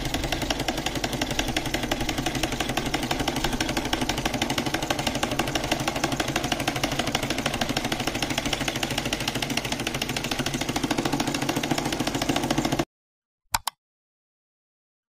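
Homemade four-cylinder solenoid engine running: a fast, steady clatter of magnet pistons and switch contacts, which cuts off sharply about 13 seconds in. A brief click follows.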